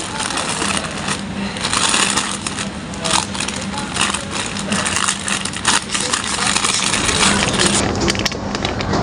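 Close-up rustling with many small clicks and taps, as packaged items are handled, over a steady low hum.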